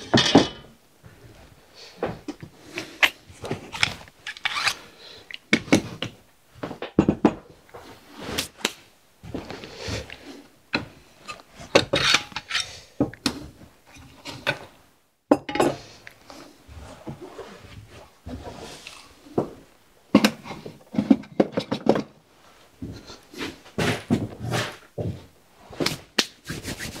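Irregular knocks, clunks and rustling as tools and wooden pieces are picked up and set down on a wooden workbench.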